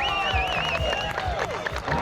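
Fireworks crackling and bursting over music playing from the display's soundtrack, with a high wavering whistle in the first second.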